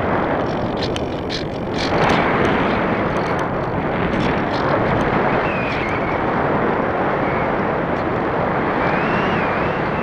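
Steady rush of airflow over the microphone of an action camera riding on a Parkzone Radian RC glider in flight, with a few faint ticks in the first few seconds and a faint wavering whine from about halfway.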